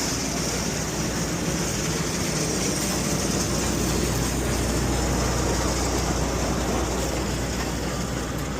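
Combine harvester engine running steadily, a constant low hum under a steady high hiss.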